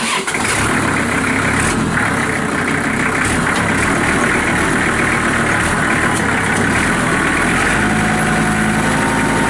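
1998 Kubota M5400's five-cylinder diesel engine running steadily, coming in suddenly at the start.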